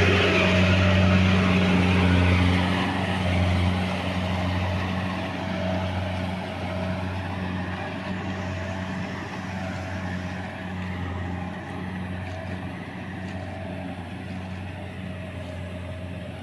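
Combine harvester's diesel engine running steadily with a low hum, slowly getting quieter as it moves away.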